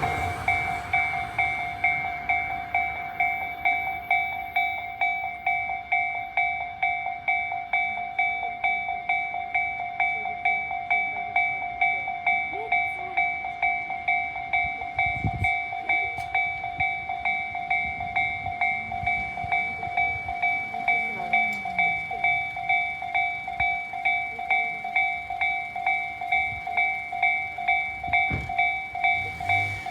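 Japanese railway level-crossing warning bell of the Tobu Tojo Line type, an electronic 'kan-kan' ringing steadily at about two strokes a second.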